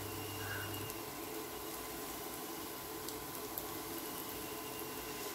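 Bread pieces shallow-frying in oil in a nonstick pan on low heat: a steady sizzle with a few small pops.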